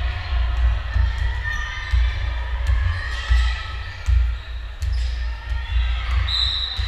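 A basketball bouncing on a gym floor in repeated thuds as it is dribbled during a basketball game, with players' and spectators' voices in the background. A short high-pitched tone sounds near the end.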